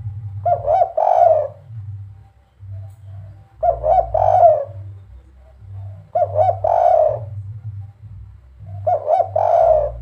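Spotted dove cooing its three-note 'kuk 3' call, two short notes then a longer one, four times about every two and a half seconds.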